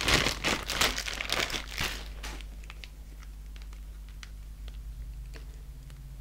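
A clear plastic bag crinkling as a plastic action figure is pulled out of it, dying away after about two seconds into a few light clicks of the figure being handled.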